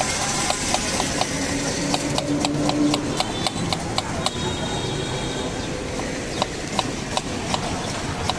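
Kitchen knife chopping a red onion on a wooden cutting board: quick, irregular taps of the blade striking the board, about three or four a second, thinning out in the second half.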